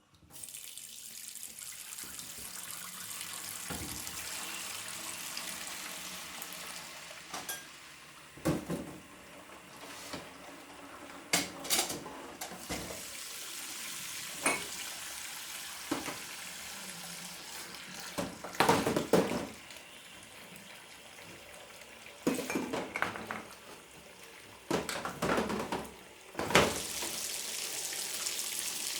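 Washing up dishes by hand at a kitchen sink: the tap runs steadily while plates, glasses and cutlery clatter against each other and the sink in irregular bursts, several of them loud.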